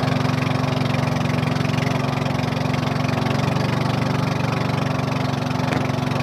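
Small boat's engine running steadily under way, a constant low drone with a hiss of wind and water over it.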